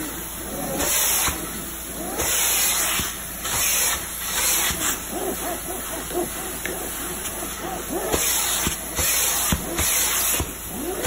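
Upholstery extraction cleaner's hand tool worked over fabric cushions: a loud hiss of spray and suction that swells and drops about once a second with each stroke, with faint wavering whistles as the tool slides across the fabric.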